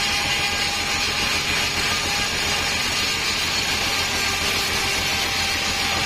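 Sawmill bandsaw running steadily, its band blade cutting through a stack of teak boards with an even, unbroken hiss of sawing.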